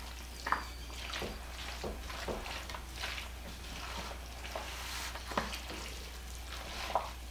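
Wooden spoon stirring a thick pasta, chicken and bean casserole mixture in a large mixing bowl, with irregular scrapes and knocks of the spoon against the bowl.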